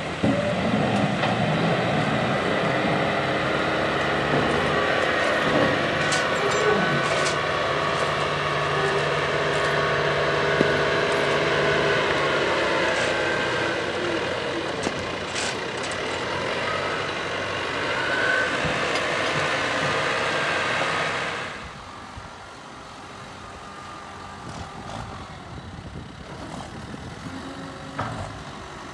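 Diesel engines of John Deere tractors working a corn silage pile, a 7230 pulling a dump body and loader tractors pushing up the silage, running loud and steady. About two-thirds of the way through the sound drops suddenly to a quieter tractor engine.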